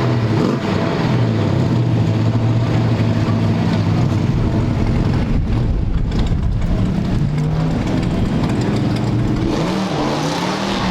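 Big-block V8 muscle car engine running steadily at a low, even pitch, then revved up and down a few times near the end.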